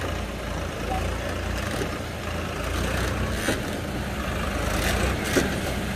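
A vehicle's engine running steadily with a low, even rumble, with a couple of faint knocks about halfway through and near the end.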